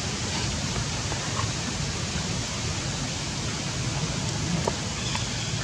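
Steady hiss of outdoor background noise, with a few faint clicks.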